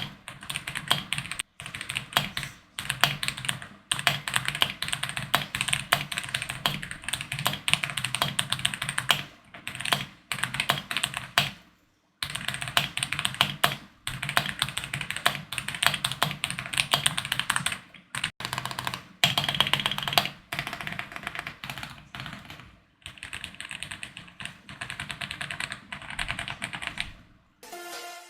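Fast typing on a 65% mechanical keyboard with Boba U4T tactile switches and MOA keycaps: a dense, rapid clatter of keystrokes in runs broken by brief pauses.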